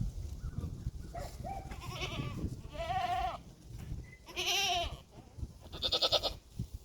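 Boer goats bleating: four quavering calls in a row, about a second apart.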